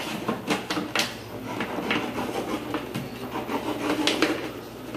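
Irregular clicks and knocks of objects being handled and set down on a hard surface.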